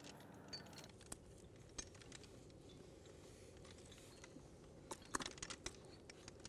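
Faint clicking and clinking of tree-climbing hardware, carabiners and a rope pulley, being handled on the climbing line, with a quick run of clicks about five seconds in.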